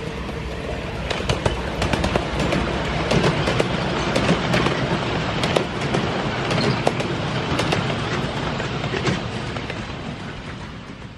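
Miniature-railway steam locomotive and its passenger carriages passing close by, wheels clicking and rumbling on the track; the sound swells as the train goes past and fades as it moves away near the end.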